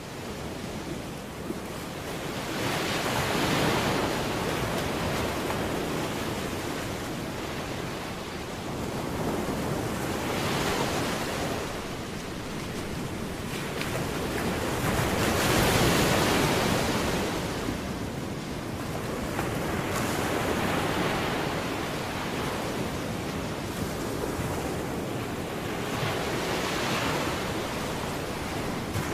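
Waves breaking on a shore: a rushing noise that swells and fades about every five or six seconds, with some wind on the microphone.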